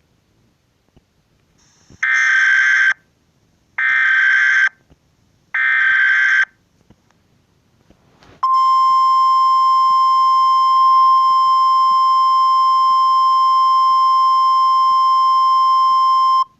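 Emergency Alert System header: three short, harsh data bursts in a row, then, about eight seconds in, a steady, loud attention tone that holds to the end.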